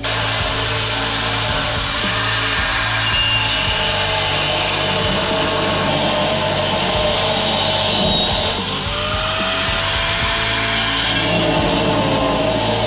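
Angle grinder running and cutting into steel on a hay mower's sickle-bar cutter bar, with a steady, loud grind whose pitch wavers. The noise starts abruptly and stops abruptly.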